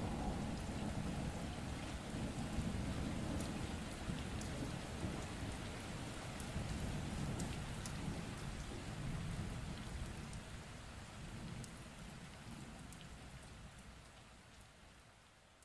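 Steady rain falling, with scattered drops ticking and a low rumble of thunder underneath. It fades out gradually over the last few seconds.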